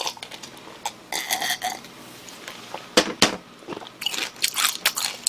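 Close-mouthed eating sounds: swallowing a drink, then chewing crunchy uncooked ramen noodles, with scattered crunches and two sharp ones about three seconds in.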